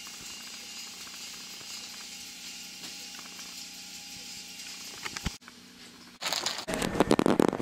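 Steady electrical hum with a fixed tone and a hiss inside an old electric train's driver's cab. About five seconds in, a few clicks and an abrupt cut lead to loud, irregular crackling and knocking.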